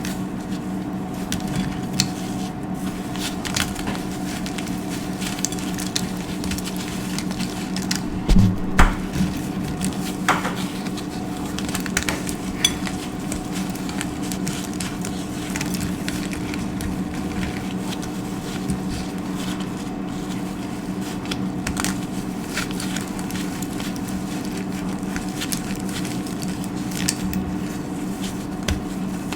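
Dry soap being crunched and cut, with many crisp crackles and clicks and a louder cluster of crunches about eight seconds in, over a steady low hum.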